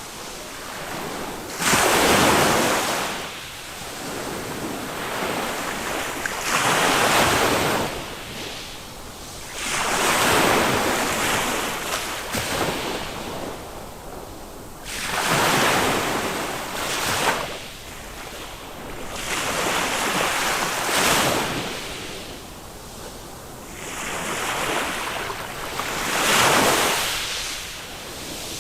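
Small waves of a calm Mediterranean sea breaking on a sandy beach, each one a rush of surf that swells and washes out, about every four to five seconds.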